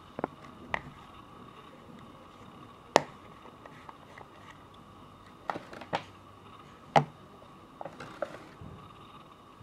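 Scattered sharp clicks and snaps of a pocket watch's metal case as fingers pry off its snap-on front bezel with the crystal, about eight in all at irregular intervals, the loudest about three seconds in and about seven seconds in.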